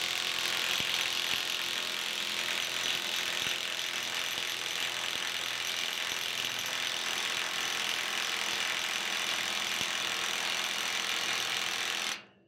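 Milwaukee M18 FUEL 3/4-inch cordless impact wrench hammering steadily on a rusted bucket cutting-edge nut, then stopping suddenly near the end; the nut does not break loose.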